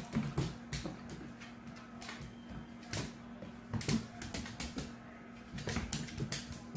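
Two dogs wrestling on a tile floor: their claws click and scrabble on the hard surface, with scattered knocks in irregular clusters.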